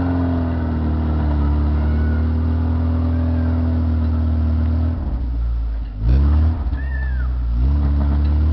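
Engine of a lifted 4x4 SUV running under load as it pulls through slushy snow ruts. About six seconds in, and again near the end, the revs climb sharply as the driver gets on the throttle.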